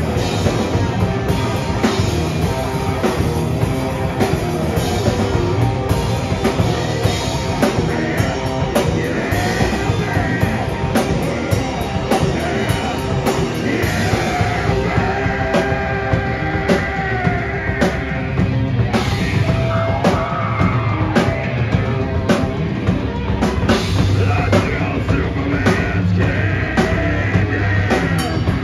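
Live rock band playing loud: electric guitars, bass guitar and a fast drum kit, with a vocalist singing into a handheld microphone.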